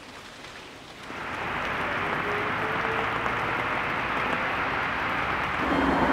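A city bus approaching on a wet street: a steady hiss of tyres and engine that comes in about a second in, with the engine note rising slightly, and grows louder near the end as the bus draws up close.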